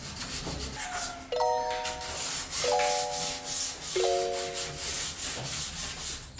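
Sandpaper rubbed by hand over a wooden door, a scratchy hiss in repeated strokes. Background music plays over it, with three chiming chords about a second and a third apart.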